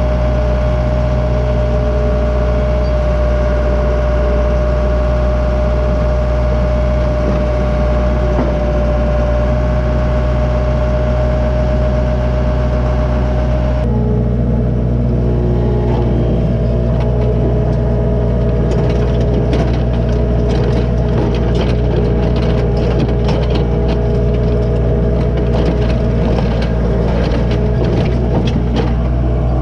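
A heavy machine's engine running steadily under load, doing earth-moving work. About 14 seconds in its tone shifts, and from then on dense clanking and scraping clatter runs over the engine.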